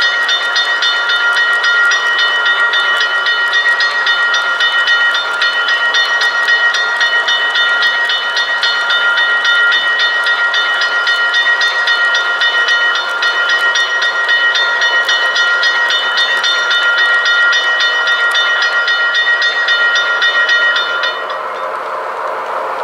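A model railroad locomotive running on the layout, with a steady high-pitched whine and rapid clicking that cut out about 21 seconds in.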